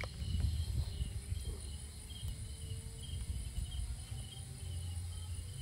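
Crickets chirping in a steady rhythm of short, high pulses, a few a second, over a low rumble.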